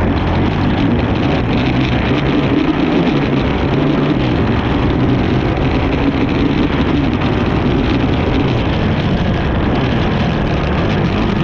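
Racing ATV engine running hard and continuously, its pitch stepping up and down with throttle and gear changes, mixed with rough noise from the ride.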